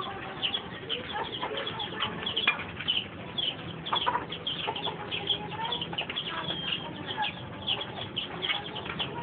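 Chickens and small birds chirping and clucking in the background, with scattered light knocks as a dog climbs a wooden ladder.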